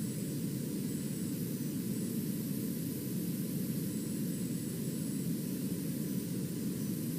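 Steady radio static from a receiver with no programme audio: an even, low rushing hiss, with faint thin high-pitched whines that come and go.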